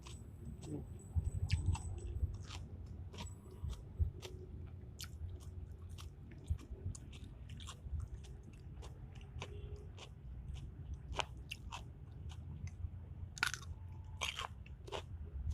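A person chewing and biting food close to the microphone, with many short crisp clicks and crunches.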